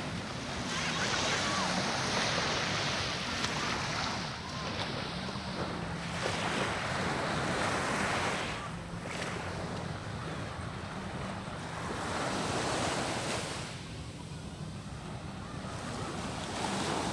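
Rough sea surf breaking and washing up the beach, swelling and easing every few seconds, with wind buffeting the microphone.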